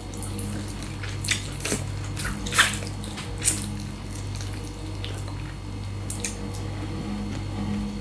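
Eating sounds from someone chewing roast chicken: a few sharp, wet smacks and clicks, mostly in the first half, over a steady low hum.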